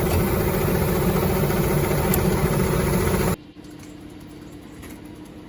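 Engine-driven machine running steadily with a low hum, cut off abruptly about three and a half seconds in, leaving only a faint hum.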